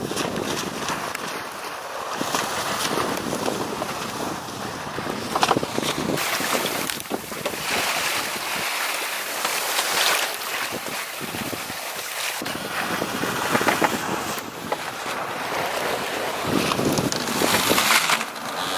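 Wind buffeting the microphone over the rush of water along the hull of a sailing yacht under way under sail, rising and falling in uneven gusts.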